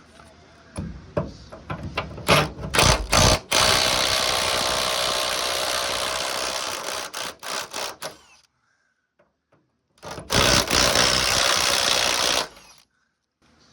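Impact wrench hammering on a rusted, heat-loosened cab mount bolt in two runs, about four seconds and then two and a half seconds, after a few clanks near the start; the bolt is starting to come out.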